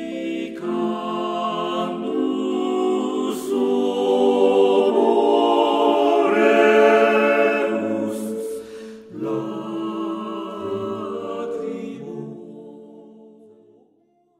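Choral singing with several sustained voices, swelling to its loudest about seven seconds in, then fading out near the end.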